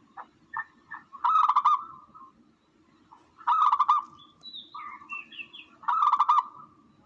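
Recorded dove (tukmo) calls played as a hunting lure: three loud bursts of rapid pulsing coos, about two and a half seconds apart, with softer single notes between them and a higher twittering about two-thirds of the way through. A steady low hum runs underneath.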